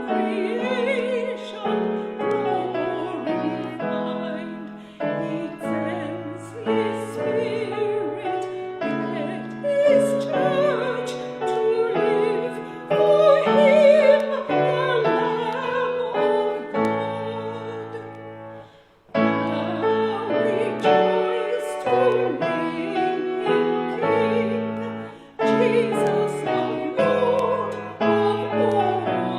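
A slow song sung by a solo singer with a wavering vibrato, accompanied by piano. The music breaks off for a moment about two-thirds of the way through, then carries on.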